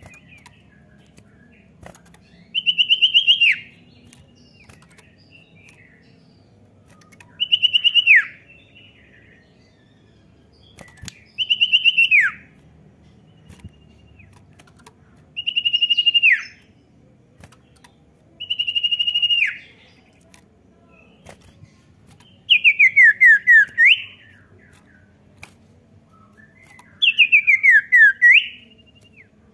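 Common iora (cipoh) singing: short phrases of fast repeated whistled notes, several ending in a falling glide, given seven times about every four seconds.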